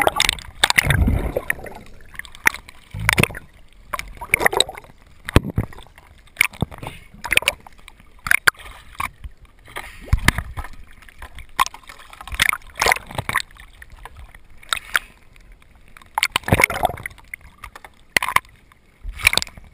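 Seawater splashing and sloshing around a diver swimming at the surface, in short bursts about once a second.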